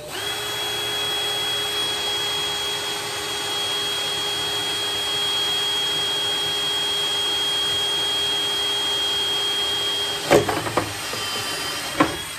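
Cordless DeWalt drill running at a steady speed, boring a pilot hole through the sled's base plate with an even, unchanging whine. About ten seconds in it stops with a sharp knock, followed by a few light clicks and another knock near the end.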